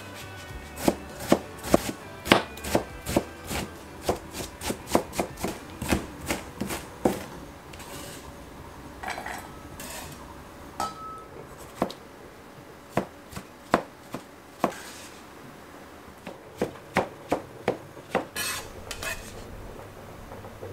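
Kitchen knife chopping an onion on a plastic cutting board: a fast run of sharp knocks for the first several seconds, scattered strokes after, then another quick run near the end.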